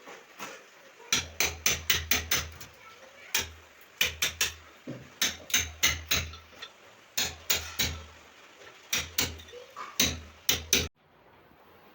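Hammer blows struck in quick runs of four to seven, with short pauses between the runs.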